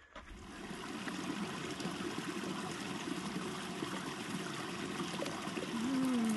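A small creek trickling and running steadily, starting abruptly.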